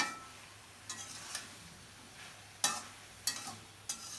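A slotted metal spatula scrapes and taps against a metal karahi six times at irregular intervals. It is stirring cauliflower and potatoes frying in spice paste, with a soft sizzle underneath. The masala is being fried down (koshano) and is nearly done.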